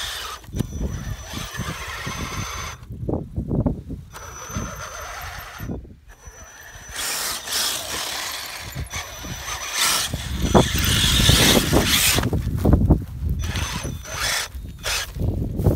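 RC Bronco truck's electric motor whining at high revs in repeated bursts as its tyres spin and churn through deep wet mud, the loudest churning a little past the middle.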